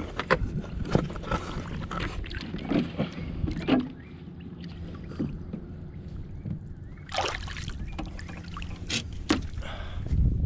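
A small flounder being handled and released over the side of a boat: water splashing and sloshing against the hull, with scattered knocks and clatters on the boat, over a steady low hum.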